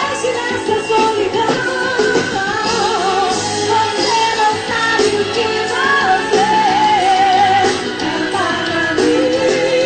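Live forró band music with a lead singer over the band, the sung melody wavering and sliding.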